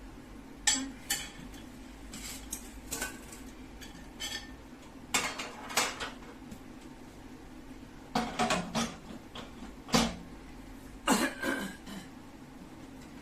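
Scattered clinks and knocks of hard parts being handled and set down, about a dozen in all, the loudest near the start and in the second half.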